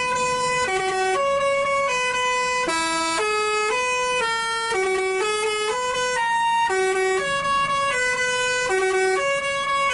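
Basuri telolet bus horn playing a tune: a quick, unbroken run of short notes stepping up and down in pitch.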